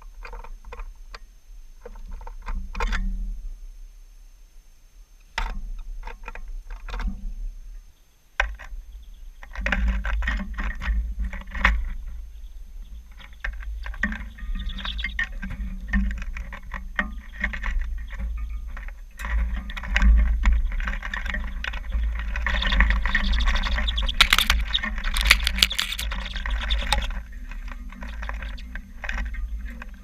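Small birds pecking and shuffling seed in a tray feeder right beside the microphone: scattered clicks and taps at first, becoming a dense crackle of beaks, feet and scattered seeds from about ten seconds in as a flock of common redpolls feeds. A low rumble runs underneath.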